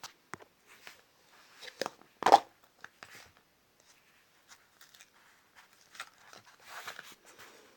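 Plastic slime container being handled and opened: scattered small clicks and crackles, with one sharp snap about two seconds in and soft rustling near the end.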